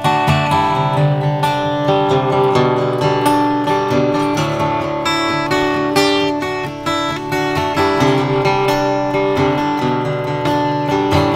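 Steel-string acoustic guitar played continuously, a flowing run of plucked notes and strummed chords.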